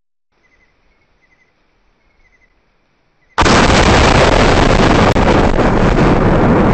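A car bomb in a sport utility vehicle detonates in a controlled test: after about three seconds of faint background, a sudden, very loud blast hits, and the noise stays loud to the end, briefly cutting out about two seconds after the blast.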